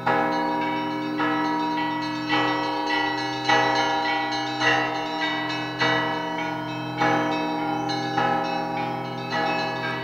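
Russian Orthodox belfry bells rung together, a fresh strike about once a second with the smaller bells ringing over a steady low hum from a large bell, each stroke's ring carrying into the next.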